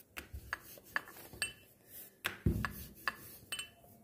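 Rolling pin working puri dough on a rolling board, giving a quick run of light clicks and knocks, about two or three a second, some with a short ring, and a heavier thud about halfway through.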